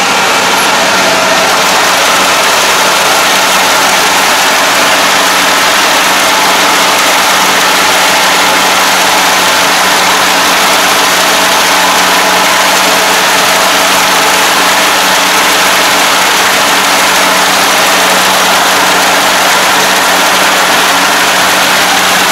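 Rice combine harvester running as it cuts and threshes standing rice: a steady, loud machine drone with a constant low hum and no change in pace.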